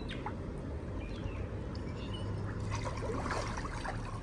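Swimming-pool water sloshing and trickling around a swimmer's body as he floats face down, lifts his legs, and then stands up. It gets louder about three seconds in, over a low steady hum.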